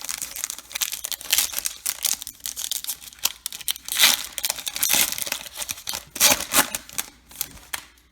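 Wrapper of a baseball card pack being torn open and crinkled in the hands: a continuous run of crackling rustles that stops just before the end.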